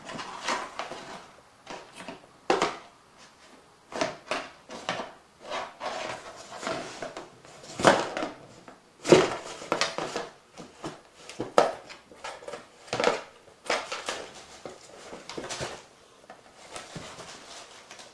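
Kittens playing with paper and a wrapped box: irregular crinkling, rustling and scratching, with scattered light knocks, coming in quick bursts with short pauses between.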